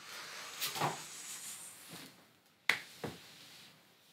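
Cardboard box lid sliding off and rustling as the box is opened, followed by a sharp click and a duller knock about a second later.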